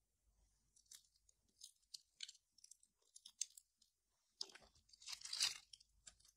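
A slice of crusty gluten-free bread handled and squeezed between fingers, its crust and crumb giving off small scattered crackles. A louder, denser burst of crackling comes about four and a half seconds in.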